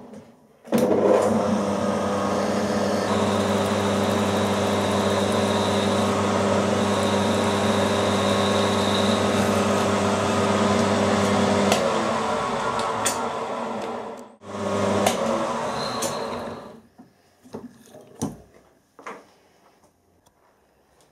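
Milling machine spindle motor running while the tool cuts into an aluminium block. It starts about a second in and runs steadily for about thirteen seconds, cuts out briefly, runs for another two seconds, then stops, leaving a few light clicks.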